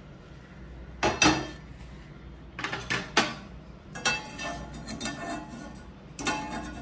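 Metal kitchenware clattering: a steel pan and a stainless steel plate of roasted spices knocking and clinking, in four short groups of knocks with a brief metallic ring.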